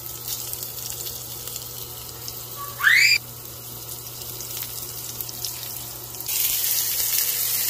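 Prawns sizzling in shallow hot oil in a nonstick frying pan, the sizzle getting much louder about six seconds in as more prawns are laid into the oil. About three seconds in, a short loud rising whistle.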